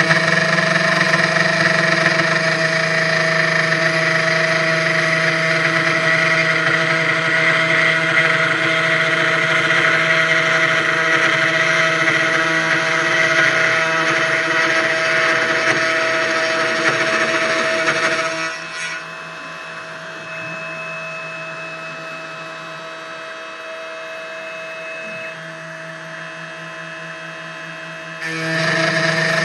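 CNC 1610 Pro desktop router milling with a 3 mm end mill in 0.4 mm passes: the small spindle motor gives a steady whine under a hiss of cutting. About 18 s in, the sound drops clearly quieter for about ten seconds, leaving the motor tones, then returns to full loudness near the end.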